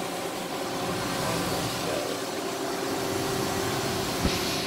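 Steady machinery hum with several steady tones inside a broken-down, stopped dark ride, and a single knock about four seconds in.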